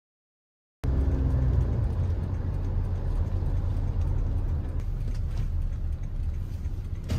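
Steady low rumble with a noisy hiss above it, starting abruptly just under a second in.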